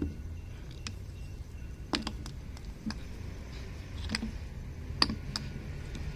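Irregular light clicks and knocks as engine pistons on their connecting rods are picked up, shifted and set down against each other and the work surface.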